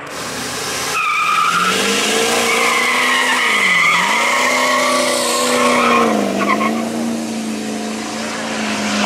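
Ford Super Duty pickup doing a burnout: the engine is held at high revs, its note dipping twice, while the rear tires squeal and smoke.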